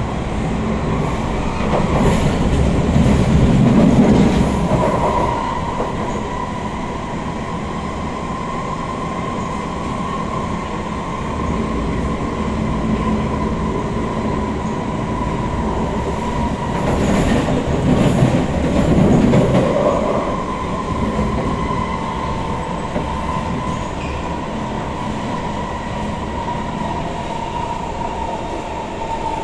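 SMRT C151 metro train running at speed, heard from inside the car: a continuous rumble of wheels on rail under a steady high whine, the whine sinking slightly in pitch near the end. The rumble swells louder twice, a few seconds in and again past the middle.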